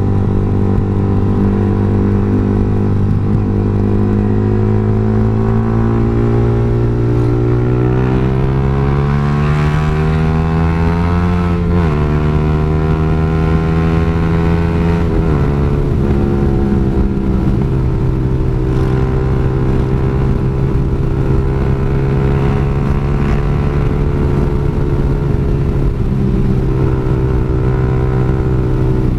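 Yamaha R15 sport bike's single-cylinder engine accelerating through the gears. The engine note climbs for several seconds and drops sharply at an upshift about twelve seconds in, then climbs and drops again at the next shift about three seconds later. It then settles into a fairly steady cruise.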